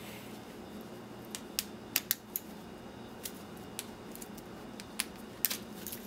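Scattered sharp clicks and light metal clinks from a microwave's wiring harness and small salvaged metal parts being handled and sorted, about nine in all, the loudest about two seconds in and near the end.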